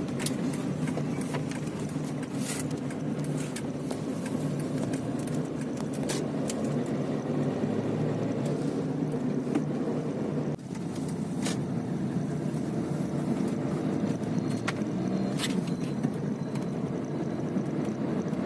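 Steady low rumble of road and engine noise inside a moving car's cabin, with a few sharp clicks scattered through it.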